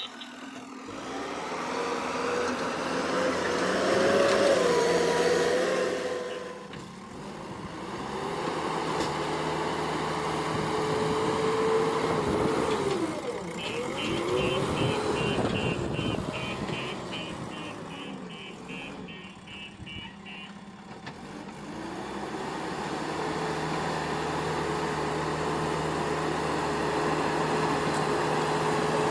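JCB backhoe loader's diesel engine running under work, its pitch rising and falling as it revs up and eases off. Midway there is a run of rapid, evenly spaced high beeps lasting several seconds, with more starting near the end.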